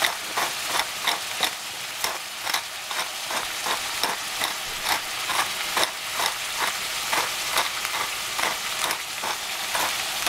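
Hand-twisted spice mill grinding over the pan, a rapid run of about two to three crunching clicks a second, over the steady sizzle of sliced squash and greens frying in a saucepan.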